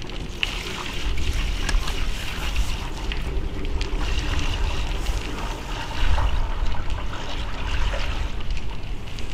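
1:1 sugar syrup pouring from a plastic bucket into a plastic tray hive feeder, a steady splashing trickle. Wind buffets the microphone in low gusts, swelling about a second in and again about six seconds in.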